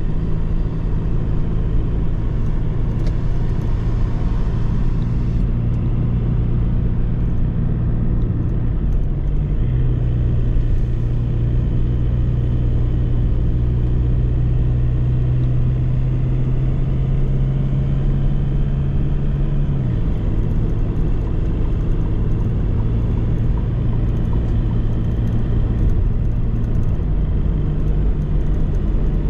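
Delivery van engine running while driving, over steady road noise. The engine note steps up about a third of the way in, holds, and drops back about two-thirds of the way through.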